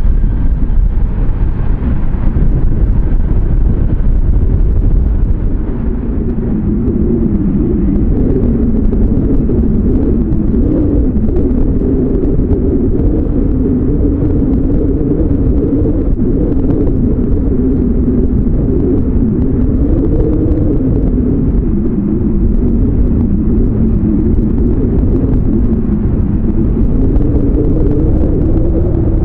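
Jet airliner engines rumbling as the aircraft passes: a loud, steady low rumble, joined about six seconds in by a hum that slowly wavers up and down in pitch.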